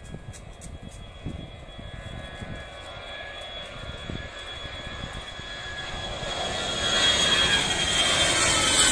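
Citilink Airbus A320's twin jet engines at takeoff power as the airliner lifts off and climbs overhead. The noise grows steadily louder, with a high whine and a strong hiss coming in over the last couple of seconds as it passes close.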